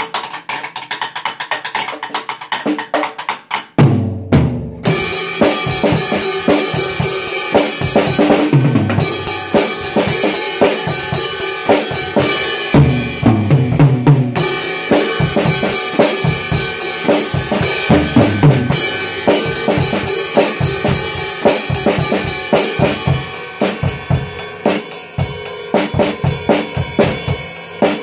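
Acoustic drum kit played fast by hand: light, quick strokes for the first few seconds, then a loud hit about four seconds in brings in a continuous cymbal wash over bass drum and snare beats, with brief breaks in the cymbals now and then.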